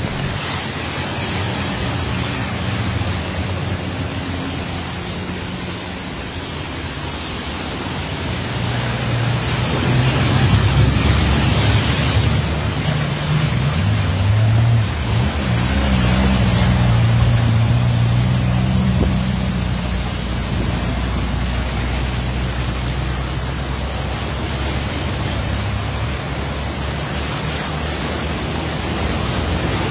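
Floodwater rushing and surging along a street, a steady loud wash, with the engines of a truck and cars driving through the water, the engine hum strongest from about ten to twenty seconds in.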